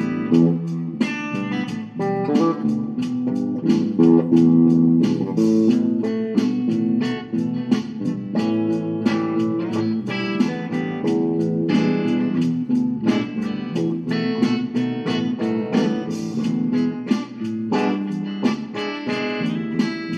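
Instrumental guitar music: a plucked guitar playing a steady run of quick picked notes over a lower bass line.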